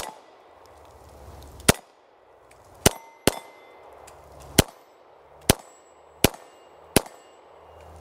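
Beretta M9A3 9mm pistol firing about seven or eight shots in slow, steady succession, roughly a second apart. Several shots are followed by a short metallic ring from the steel plate targets being hit.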